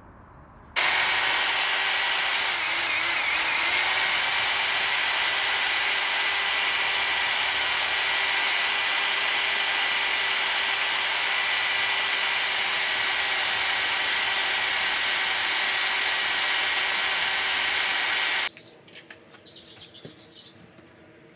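Electric drill with a paddle mixer running steadily at high speed, churning self-leveling underlayment mixed with water in a bucket. Its speed wavers briefly about three seconds in, and it cuts off a few seconds before the end.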